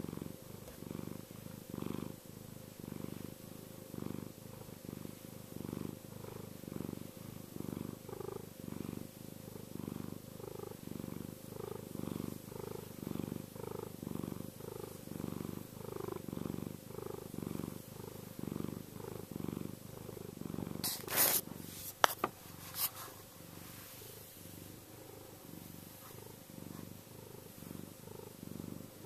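Domestic cat purring, a low rumble that swells and fades in regular cycles. A few sharp clicks come about three quarters of the way through.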